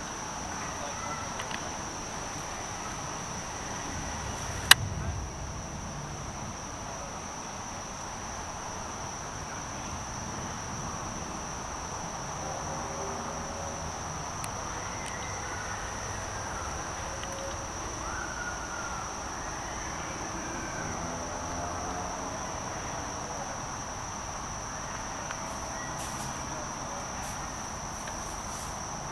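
Insects chirring in one steady, high-pitched drone, with a single sharp crack about five seconds in.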